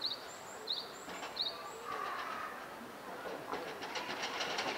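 A small bird chirps three times in quick short notes. About three and a half seconds in, a fast clattering rattle of rapid clicks starts up.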